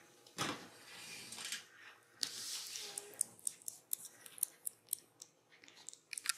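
Soft rustling of a fleece blanket as a kitten rolls and squirms on it, then a run of small, sharp clicks and scratches as it bites and claws at a finger.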